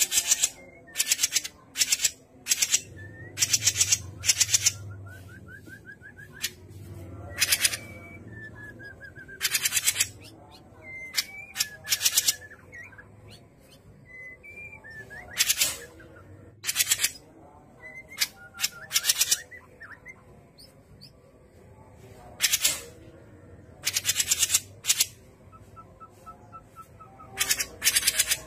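Cucak jenggot (grey-cheeked bulbul) calling: repeated rasping, buzzy bursts of chatter, each under a second, coming in irregular clusters, with fainter trilled whistles between them.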